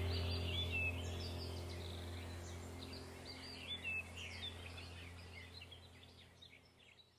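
Birds chirping in many quick, repeated notes over a steady low hum. The whole sound fades out gradually.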